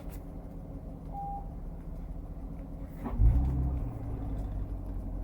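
C7 Corvette's 6.2-litre LT1 V8 running steadily, with a low surge in engine note about three seconds in that settles into a deeper, steady drone.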